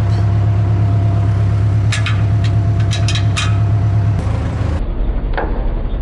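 Case backhoe's diesel engine idling with a steady low hum, with a few sharp metallic clanks from about two to three and a half seconds in as a strap is hooked onto the bucket.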